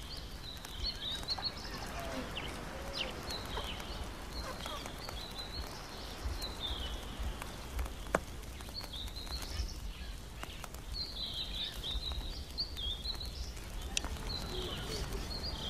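Small birds chirping and twittering on and off, over a low steady background rumble, with a few faint clicks.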